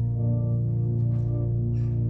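Slow ambient background music made of sustained low drone notes.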